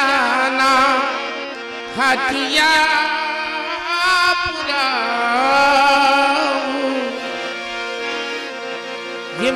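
Gujarati dakla devotional song: a sung vocal line with strong vibrato and long drawn-out notes over held instrumental notes, with little percussion.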